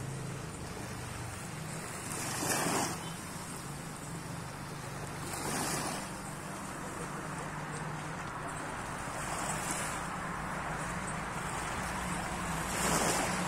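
Shallow sea surf washing in, swelling every three to four seconds, with a steady low rumble of wind on the microphone.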